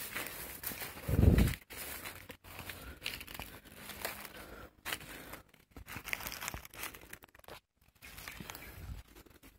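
Footsteps pushing through tall grass and undergrowth, stems and dry leaves rustling and crackling in uneven bursts, with a loud low muffled bump about a second in. Near the end, dry leaf litter crackles as a hand picks up the shot bird.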